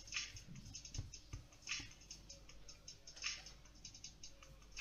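Faint soft taps and short rustles of hands handling and pressing a ball of soft dough on a worktop, with a few light knocks against the surface.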